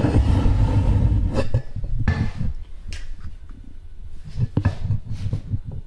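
Handling noise on a metal machine setup: a low rumble through the first second or so, then a few scattered light clicks and knocks from hands on the stainless steel shim and aluminium rail plate.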